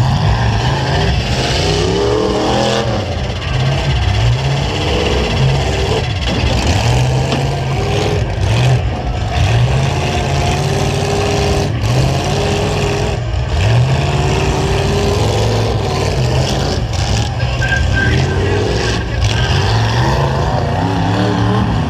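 Several demolition derby trucks' engines revving up and down at once, their pitch rising and falling over and over.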